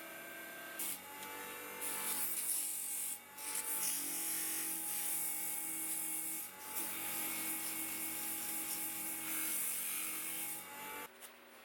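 Homemade wooden lathe running while a tool works the spinning wood, with a steady motor hum under a loud scraping hiss; it stops about eleven seconds in.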